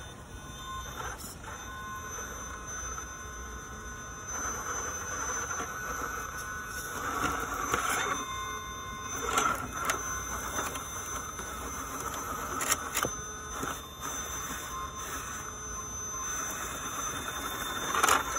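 RC rock crawler's Castle 2280kv Slate brushless motor and gear train whining as the truck climbs over rocks, rising and falling with the throttle. Scattered sharp clicks and knocks of tyres and chassis on rock, the loudest near the end.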